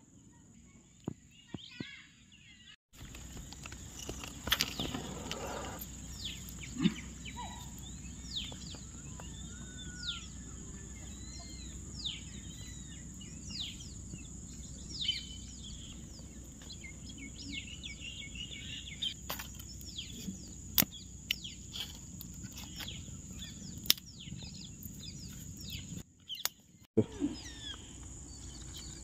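Outdoor field ambience: many birds chirping in short, quick calls over a steady background hiss, with a constant high-pitched tone and a few sharp clicks. The first few seconds are quieter.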